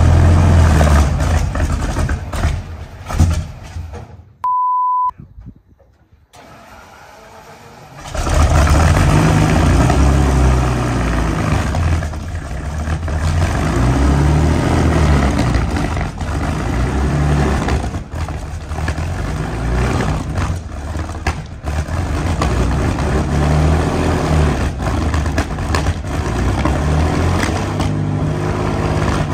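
Heavy engine of a tracked armoured vehicle running, its note rising and falling. About four seconds in the engine sound drops out to near silence for a couple of seconds, broken by a short, steady electronic beep, and comes back strongly about eight seconds in.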